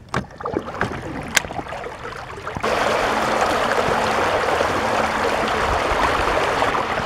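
A few handling knocks and clicks, then, about two and a half seconds in, a sudden steady rush of water splashing around swim fins trailing from an inflatable pontoon boat on the move, with a faint steady hum beneath it.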